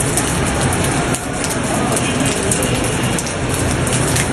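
Loud, steady rushing roar of a river in flood, an even wash of noise with no separate events.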